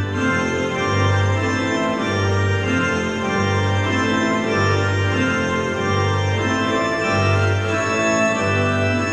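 Electronic keyboard played with an organ sound: sustained chords over a low bass note that is struck again about once a second.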